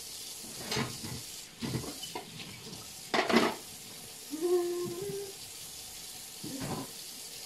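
Kitchen tap running steadily into a stainless-steel sink while a pot lid is rinsed, with several clatters of the lid and metal against the sink. The loudest clatter comes a little past three seconds in, and a brief held tone follows about a second later.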